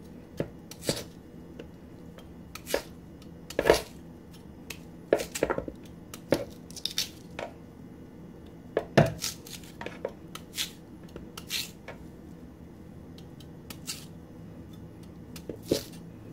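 A kitchen knife cutting peeled cocoyam into pieces: about fifteen short, sharp knocks and clicks at irregular intervals.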